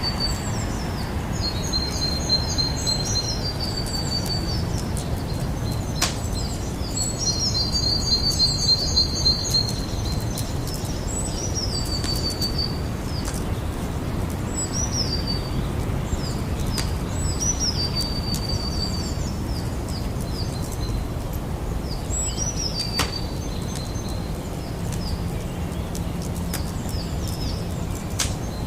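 Campfire burning with a steady low rumble and scattered crackles, including a couple of sharp pops. A bird sings short whistled phrases over it, repeated every few seconds.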